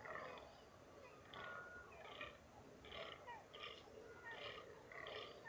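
Rutting fallow buck croaking: a faint, steady series of short throaty calls, about one every two-thirds of a second. This is the buck's rut call for dominance.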